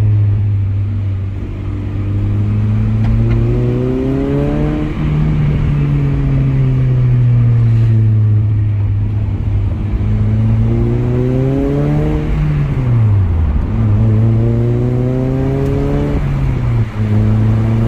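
Honda Prelude's H22A 2.2-litre VTEC four-cylinder engine accelerating on the road, its pitch rising through each gear and dropping back at each of several upshifts. It runs smoothly, its misfire cured by new spark plugs and plug leads.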